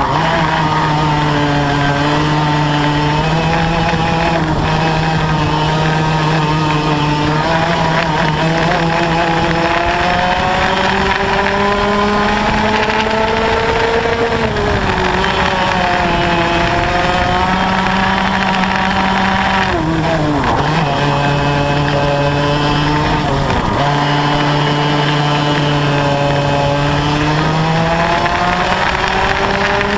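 Yamaha KT100 single-cylinder two-stroke kart engine with a Y-pipe exhaust, heard onboard at racing speed. It holds high revs on the straights, and its pitch sinks and climbs again as the driver lifts off and gets back on the throttle, sharply twice about two-thirds of the way through.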